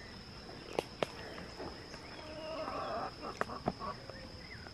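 Quiet chicken-yard ambience: a steady high-pitched insect drone, a few crunching footsteps on dry leaves and dirt, and faint clucking from the chickens.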